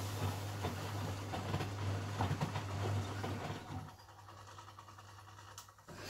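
1988 Miele WS 5406 front-loading washing machine in its wash phase: the motor hums and the drum tumbles laundry through soapy water, then the drive stops about four seconds in for the pause between drum reversals, with a single click near the end.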